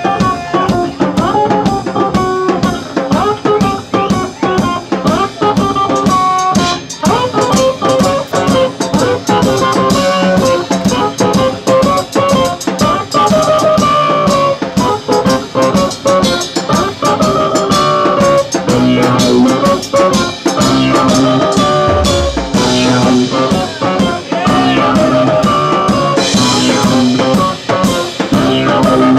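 A live band playing loud music on drum kit and guitar, with fast, steady drumming and cymbals under the guitar lines.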